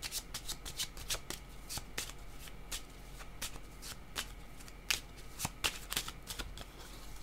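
A deck of oracle cards being shuffled by hand, hand over hand: a run of quick, irregular card snaps and slaps, several a second.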